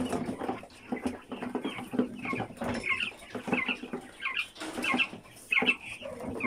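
A flock of white giant Japanese quail calling in many short, quick chirps. Sharp clicks and rattles come from the wire cage as a bird is put into it.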